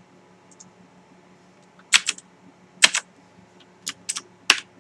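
Cherry MX Blue key switches on a mechanical keyboard clicking in short clusters as several keys are pressed down together and let go, a few sharp clicky bursts spaced about a second apart.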